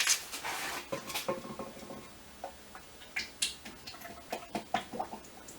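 Scattered light clicks and taps of a measuring container being handled while motor oil is poured into the engine, with a short rushing noise at the start.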